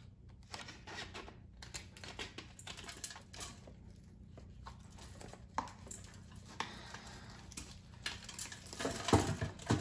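Faint crinkling, rustling and small taps of a thin plastic nursery pot being squeezed and handled as a tightly rooted melon plant is worked loose, with loose potting soil crumbling. The handling knocks grow louder near the end.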